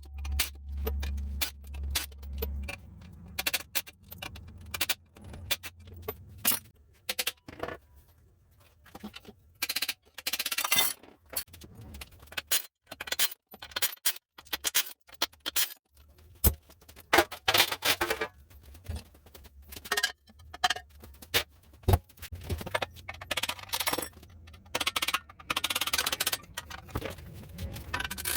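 Metal hand tools and motorcycle parts clinking, knocking and scraping in irregular strokes, as in taking a motorcycle apart, with music faintly underneath.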